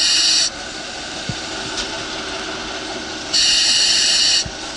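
Fire truck engine running steadily, broken by two loud hissing bursts of about a second each, one at the start and one about three and a half seconds in. A couple of faint knocks sound in between.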